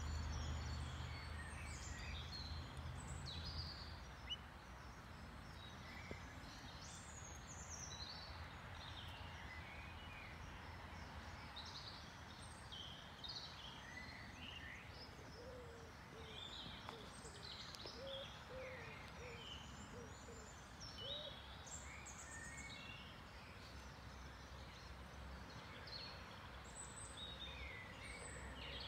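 Faint background birdsong: small songbirds chirping and twittering over a low, steady rumble that eases after the first few seconds, with a run of short, low calls in the middle.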